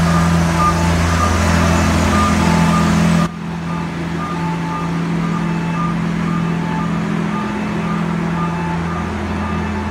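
Scissor lift's travel alarm beeping over and over at two pitches, over a steady low machinery hum. About three seconds in, the background hum and hiss drop abruptly while the beeping carries on.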